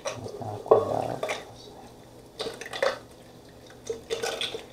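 Oil-soaked fried chiles de árbol and garlic sliding from a bowl into a glass blender jar, pushed along by a spatula: a few separate bouts of soft scraping and clattering with oil dripping.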